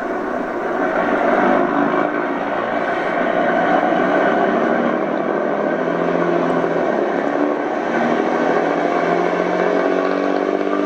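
HO-scale model train running on the layout: a steady mechanical hum with engine-like tones that slide in pitch and rise near the end.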